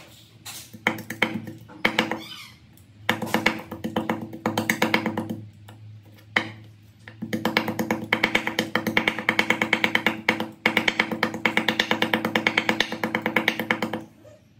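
A heavy cleaver chopping rapidly on a wooden chopping board, mincing food with quick, even strokes, about six a second. The strokes come in long runs, with a short pause about halfway through.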